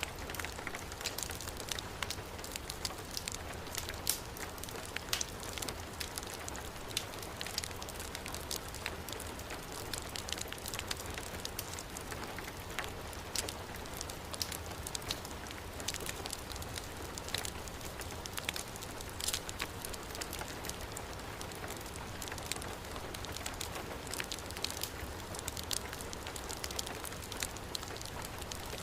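Heavy rain falling steadily, mixed with a fire crackling in a fireplace; frequent short sharp pops and crackles sit over the rain's even hiss.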